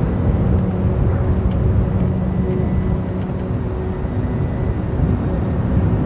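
Wind blowing across the microphone, a steady low rumble.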